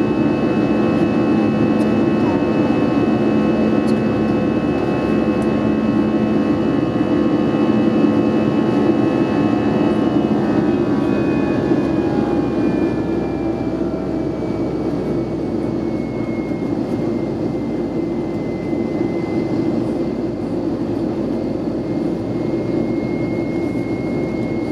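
Airbus A320 engine and airflow noise heard inside the cabin during the climb: a steady roar with a whine of engine tones. About ten to fourteen seconds in, the tones slide down in pitch and the noise gets a little quieter as the engines slow.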